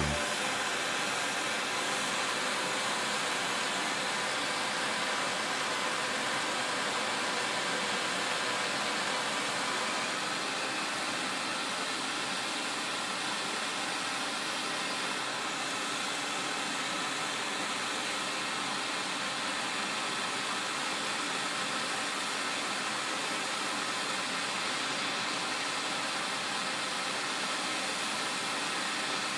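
Steady hiss of a MAPP-gas turbo torch flame playing on a copper pipe joint as it is heated and brazed with phosphor-copper rod.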